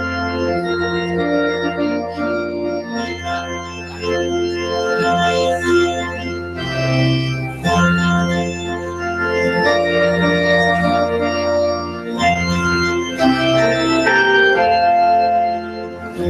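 Organ postlude: sustained chords over a low held bass, the harmony changing every second or two.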